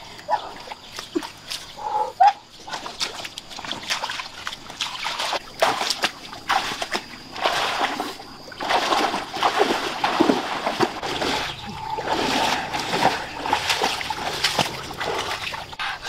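Shallow muddy water splashing and sloshing irregularly as a person wades through it.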